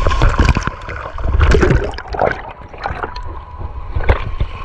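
Water splashing and sloshing on a water-park ride, uneven and noisy with short sharp splashes.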